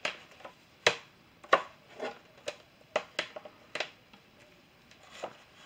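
Plastic Blu-ray case being handled: a string of irregular sharp clicks and taps, about two a second, thinning out near the end.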